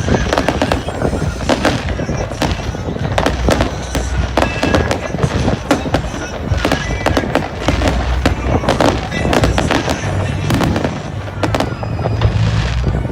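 Fireworks display: a rapid, continuous run of sharp bangs and crackling bursts over a steady low rumble.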